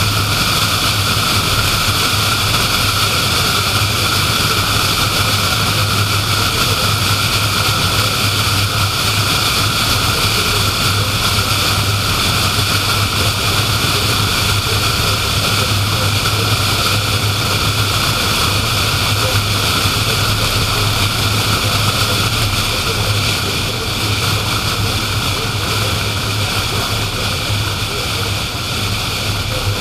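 Car driving at highway speed: steady tyre and road noise with a constant low hum, heard from inside the car. The level eases slightly near the end.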